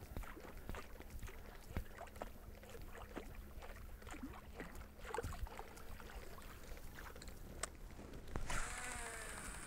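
Soft, irregular splashes and ticks of a large muskie lure being reeled back across calm water. About eight and a half seconds in, a brighter sound with falling tones comes in and runs on to the end.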